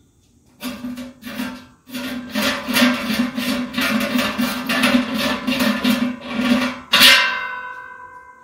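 Short burst of strummed guitar music: a rhythmic strum that ends about seven seconds in on one chord, which rings out and slowly fades.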